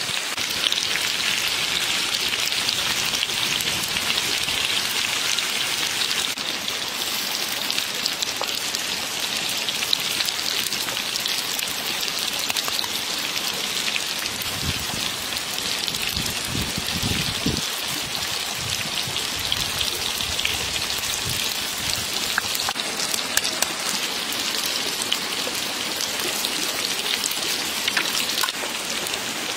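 Oil sizzling and crackling steadily in a hot pan as eggs fry inside rings of bitter melon, with a few soft low knocks in the middle.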